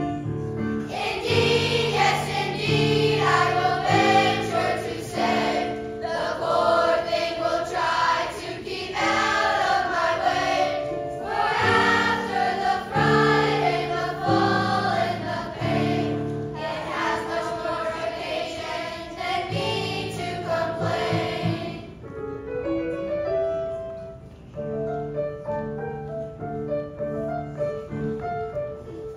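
Children's choir singing with instrumental accompaniment. About three quarters of the way through the voices stop and the accompaniment plays on alone.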